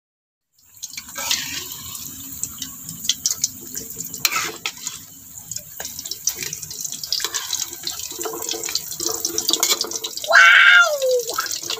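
Hot oil sizzling and crackling as batter fritters deep-fry in a wok, with many small pops. It starts after a brief silent gap at the very beginning. Near the end a short falling cry, like a voice, rises above the frying.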